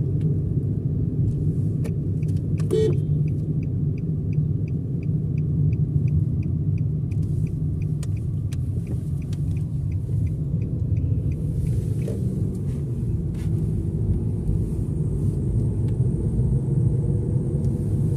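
Steady road and engine rumble inside a moving car's cabin. Through the middle of it a turn-signal indicator ticks evenly, about two and a half times a second, as the car turns at a junction.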